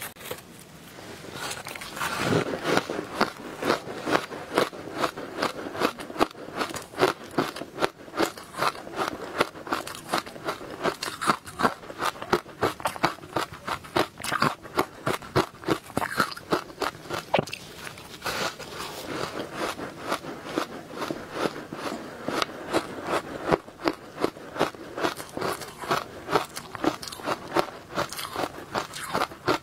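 Close-miked crunching and chewing of ice dusted with matcha powder: a steady run of crisp crunches, two or three a second, as bites are chewed.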